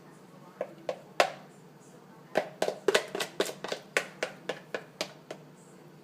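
A kitchen utensil knocking against cookware in a string of sharp taps, as pancake batter goes into the pan. There are three taps, then after a short pause a quicker run of about a dozen, roughly four a second.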